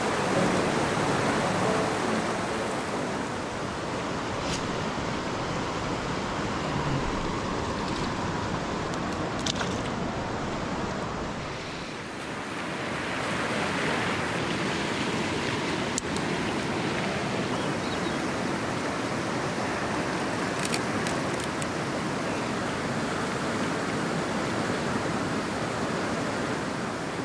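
Steady rush of a fast-flowing river, with a few faint clicks scattered through.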